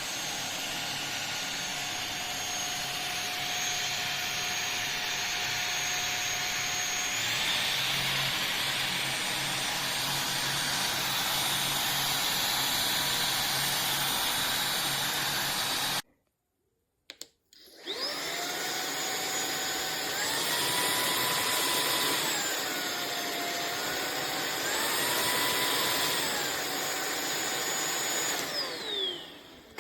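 Anyson cordless stick vacuum running, its motor whine stepping up in pitch about seven seconds in. It breaks off at about sixteen seconds, then spins up again with a rising whine, steps up and back down in pitch twice, and winds down with a falling whine near the end.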